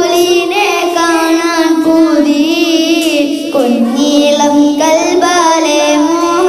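Boys singing a Malayalam devotional song in praise of the Prophet (a madh song) into microphones. They draw out long, wavering notes without clear words.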